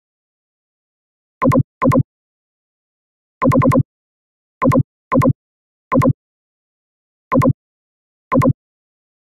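Computer mouse clicks, most likely a screen recorder's click sound effect: about nine short, sharp clicks at irregular intervals, several coming as quick double clicks, with dead silence between.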